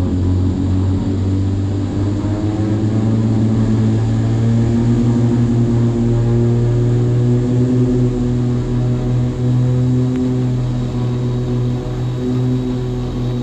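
Piper Aerostar 602P twin piston engines and propellers at takeoff power, a steady drone. Its pitch rises over the first few seconds, then holds.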